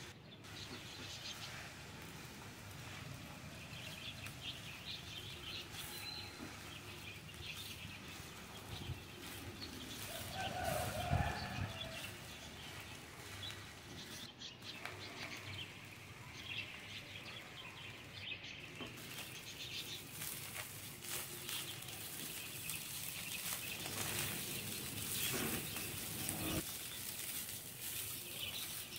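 Spatula stirring and tossing fried rice in a nonstick frying pan: irregular scraping and rustling of the rice, with many small clicks of the spatula against the pan. One short pitched call stands out about a third of the way in.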